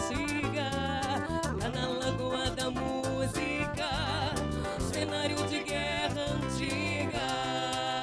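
A woman singing a Latin American folk song with vibrato, accompanied by a live band of piano accordion and acoustic guitars with a steady beat.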